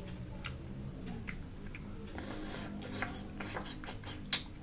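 Close-up eating sounds of rice-field snails (keong sawah): small clicks and smacks as a snail is worked at with fingers and a toothpick, and a short hissing slurp about halfway through as the meat is sucked from the shell.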